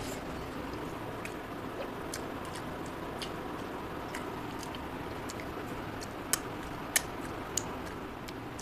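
Close-up eating sounds: a man chewing rice and mixing more rice with his fingers on a metal plate. Scattered small clicks sit over a steady hiss, with a few sharper clicks a little after six seconds in.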